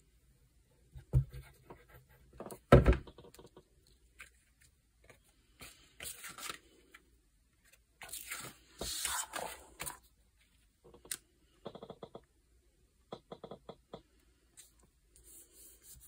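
Card and paper being handled and pressed down by hand on a stone-tile tabletop. Two thumps come in the first three seconds, then paper slides and rustles, and a run of light clicks and taps follows later.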